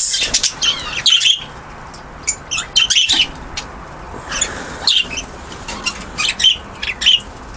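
Mixed aviary flock of small cage birds (budgies, finches, canaries) chirping and twittering: many short, quick high calls overlapping, busiest in the first second or so and then more scattered.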